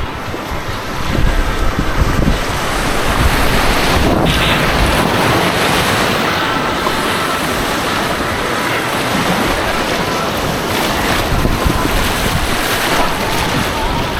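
Rushing white water on an artificial slalom course, a steady loud wash, with wind buffeting the action camera's microphone.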